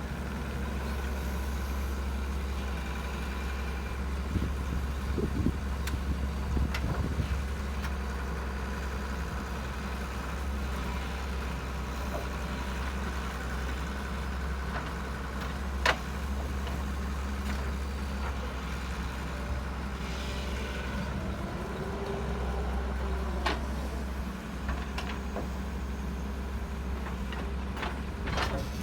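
A steady low motor hum, with a few scattered short clicks and knocks.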